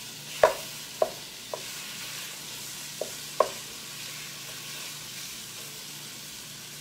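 Ground beef sizzling in a hot frying pan of garlic and oil, with a wooden spatula knocking against the pan five times in the first three and a half seconds as the meat is broken up.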